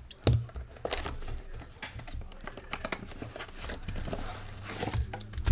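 Plastic shrink wrap on a trading-card mega box crinkling and tearing as it is handled and opened, with irregular crackles and a sharp snap about a quarter second in.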